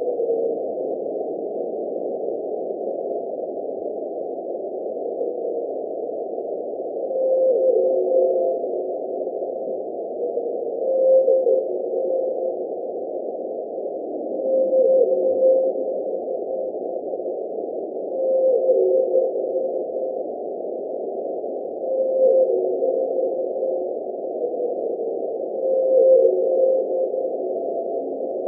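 Antarctic blue whale calls recorded by an ocean-bottom seismometer and sped up twentyfold: a held tone that drops in a short downward glide at its end, repeating about every four seconds, six times, over a steady hiss of sea-floor background noise.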